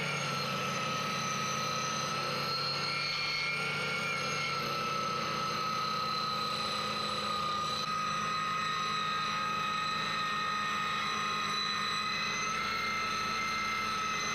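A 7-inch circular saw, mounted under a plywood top as a homemade table saw, running steadily with a constant high motor whine.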